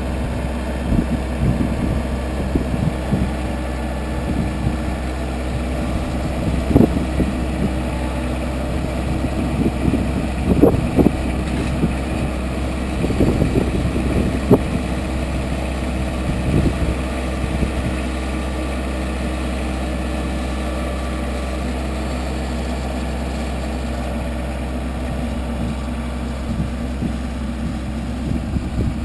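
Compact tractor's engine running steadily while its front-end loader bucket digs into dirt, with irregular knocks and scrapes from the bucket in the middle stretch.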